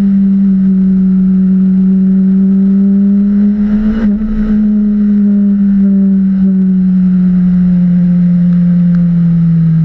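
Motorcycle engine running steadily at a light, even throttle, its pitch slowly falling, with a short break in the sound about four seconds in.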